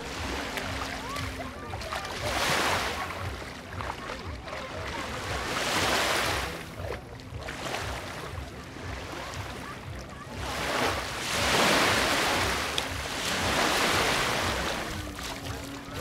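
Small waves lapping onto a sandy shore of a very calm sea, each wash swelling and fading about every three to four seconds, with wind rumbling on the microphone.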